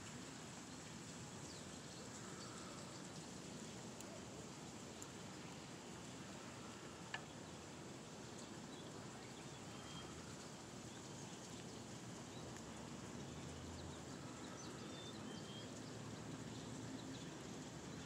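Faint outdoor ambience: a steady low hiss with a few faint, short, high chirps, likely distant birds, and one sharp click about seven seconds in.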